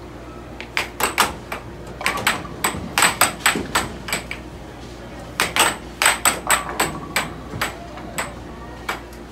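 Air hockey puck and mallets clacking: volleys of sharp plastic knocks, several a second, as the puck is struck and rebounds off the table rails, with pauses between rallies. A steady low hum runs underneath.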